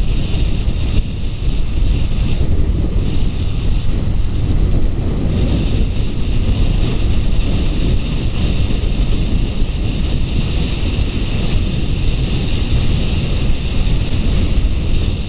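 Wind rushing over the microphone of a camera on a moving motorcycle, a loud, steady, unbroken rush heaviest in the low end, with the motorcycle's running and road noise buried in it.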